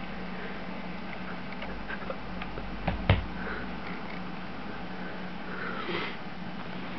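Soft rustling with a couple of sharp clicks about three seconds in, over a steady low hum.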